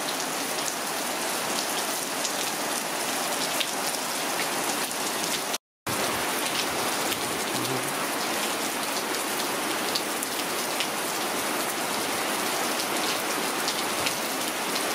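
Heavy rain falling steadily, a dense hiss with many separate raindrop ticks. The sound cuts out for an instant about six seconds in, then resumes unchanged.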